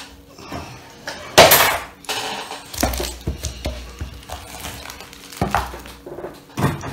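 Hard objects being handled and set down on a tabletop: several separate clattering knocks, the loudest about one and a half seconds in, as a wooden cutting board is brought in and laid on the table.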